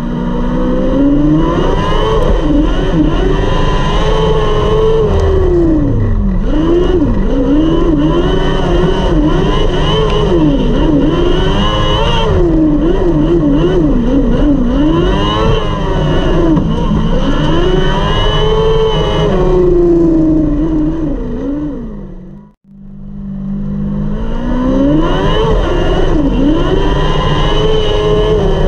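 600cc micro sprint's motorcycle engine at racing speed, heard from the car's seat, its pitch climbing and falling over and over as it revs on the straights and backs off into the turns of a dirt oval. The sound cuts out for a moment about 22 seconds in, then picks up again at full revs.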